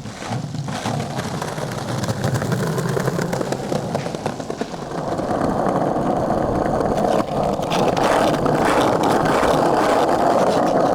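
Skateboard wheels rolling over pavement, a steady gritty rumble that gets louder about halfway through.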